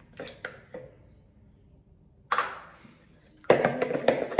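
Raw eggs poured into a large mixing bowl with a few soft clinks, and a single louder knock about two seconds in. From about three and a half seconds, a wooden spoon beats the eggs against the bowl in quick, regular strokes.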